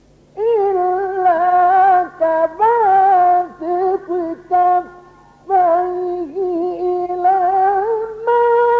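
Quran recitation in the ornate melodic tajweed style: a single high reciting voice winding through long ornamented phrases with short breaths between them. Near the end it settles on a long, steady held note.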